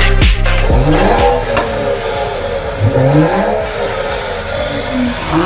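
Toyota Supra with an aftermarket exhaust revving, its pitch rising and falling several times. Electronic music fades out in the first second.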